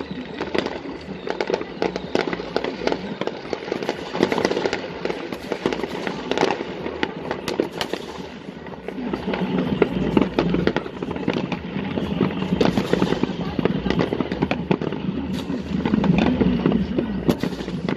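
Fireworks display: a rapid, continuous run of bangs and crackling, growing louder and denser about halfway through.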